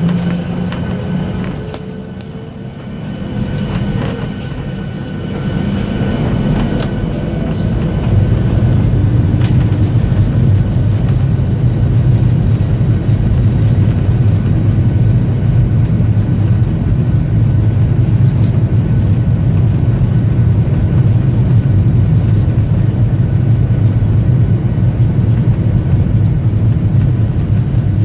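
Boeing 737-800 jet engines (CFM56) spooling up for takeoff. The noise builds over a few seconds and then holds loud and steady, with a deep low drone, as the engines run at takeoff thrust.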